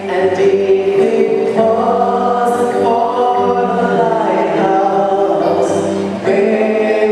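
A choir singing a hymn in harmony, in slow, long held notes.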